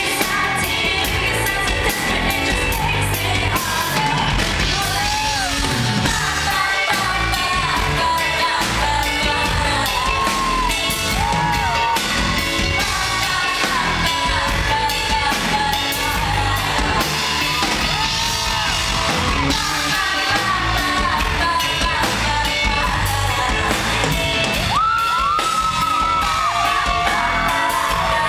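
Live pop song played by a band, with a woman singing lead through the PA, heard from the front of the audience in a large hall.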